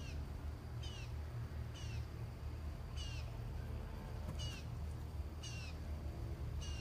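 A bird calling a short, high, falling note over and over, about once a second, over a steady low hum.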